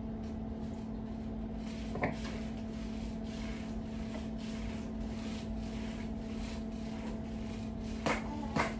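A steady low hum runs throughout, with a few light taps and knocks about two seconds in and twice near the end as hands pull cooked chicken off the bone in a pot.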